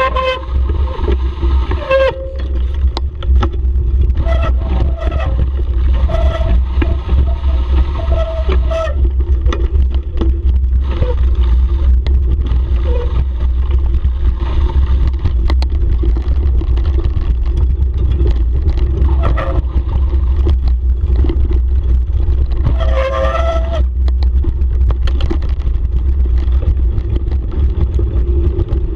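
Bicycle rattling and knocking over a rough, muddy downhill track, with a heavy wind rumble on the microphone. Several times a steady high squeal, typical of bicycle brakes under hard braking, rings for a second or several seconds.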